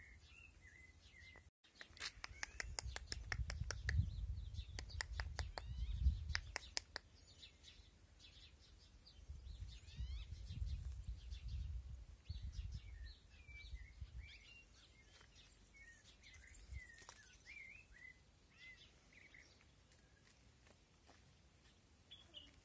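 Small birds chirping faintly on and off. Under them, low rumbling noise comes in two stretches, the first carrying a quick run of sharp clicks.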